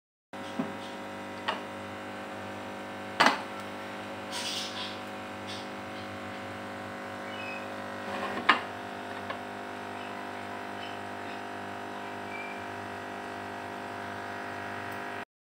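A few sharp metal clanks and clicks of an aluminium Prestige pressure cooker's lid and pressure weight being handled and set in place, the loudest about three seconds in and another about eight and a half seconds in as the weight goes onto the vent pipe. A steady hum runs underneath.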